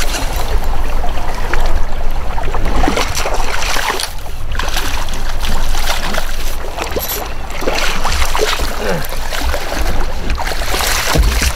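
Gusty wind buffeting the microphone, a rough, uneven rumble over a steady rush of moving river water around the kayak.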